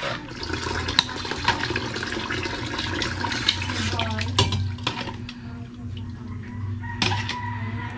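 Kitchen tap running into a stainless-steel sink, stopping about five seconds in, with sharp clicks of metal tongs against a bowl as chicken feet are handled.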